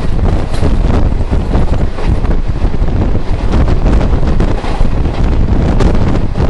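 Wind buffeting the microphone, loud and gusting, over the low rumble of a moving train.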